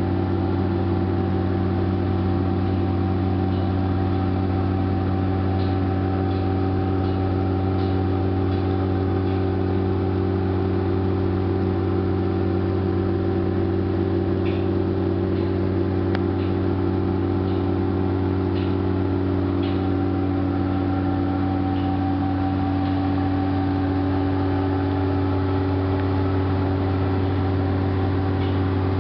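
A heavy engine running steadily at constant speed: an unchanging drone of several steady tones, with a few faint ticks.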